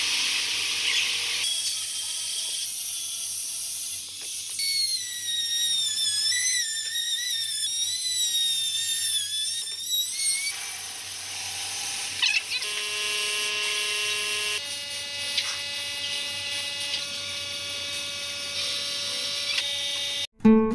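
Whine of a small corded handheld power tool working wood, its pitch wavering under load, then running at a steadier pitch. It cuts off suddenly just before the end.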